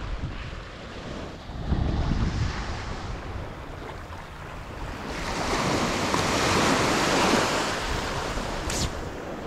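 Ocean surf: waves washing in, one swelling up about five seconds in and fading, with wind gusting on the microphone. A single short click near the end.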